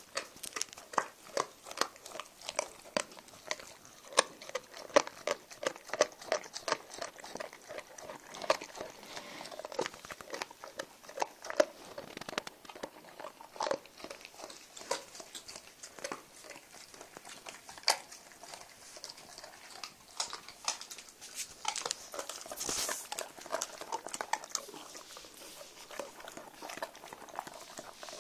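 Newfoundland dogs gnawing a pink chew: a steady run of wet clicking bites and crunches, about two a second. A brief louder hiss comes about two-thirds of the way through.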